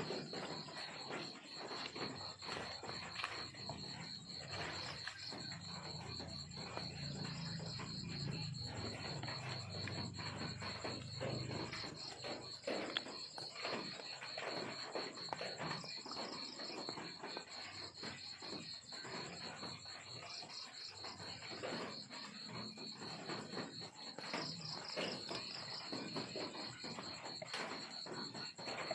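Crickets chirping in a steady, fast-pulsing high trill, over many small clicks and rustles. A low hum joins in for several seconds in the first half.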